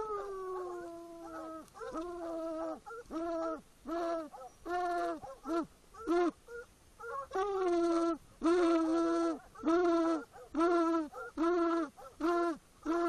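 Hunting hounds baying up close at a treed cougar. One long bawl that falls in pitch opens it, then a steady run of short chop barks, about one and a half a second.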